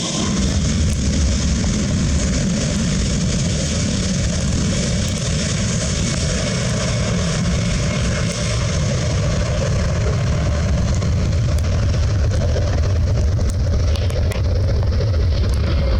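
Boeing 767 freighter's twin jet engines at takeoff power: a loud, steady roar with a deep rumble, its high hiss fading in the second half.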